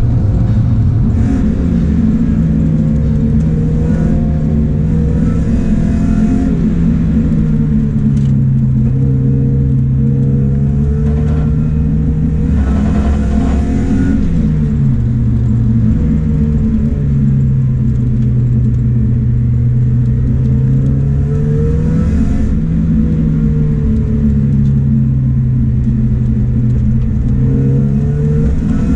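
Mazda Miata's four-cylinder engine with a straight-piped exhaust, heard from inside the cabin while driving: the engine note rises and falls with the throttle, with gear changes about halfway through and again a little later.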